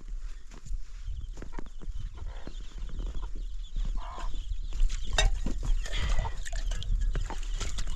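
Chickens clucking, with scattered knocks and scraping.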